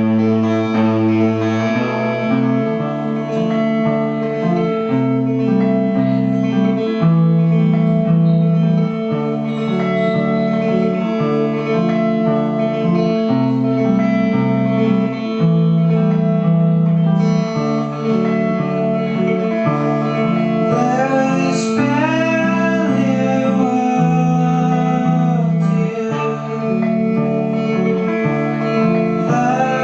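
Live band playing: guitars over a moving bass line, with a voice or slide guitar gliding between notes in the last third.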